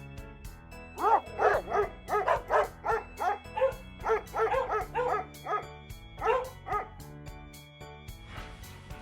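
Dog barking in a rapid series of short, high barks, about three a second, over background music.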